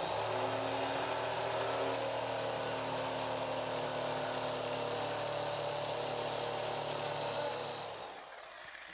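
Corded jigsaw running steadily as its blade cuts through a countertop along the sink cutout line, a low motor hum under the blade's buzz, then dying away near the end.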